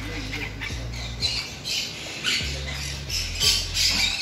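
Parrots squawking: a run of harsh, high-pitched calls repeating every half second or so, loudest near the end.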